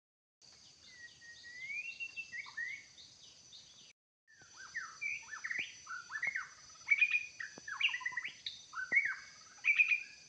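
White-rumped shama singing a varied run of loud, rich whistled phrases that rise and fall, mixed with sharp clicking notes. The song breaks off briefly about four seconds in.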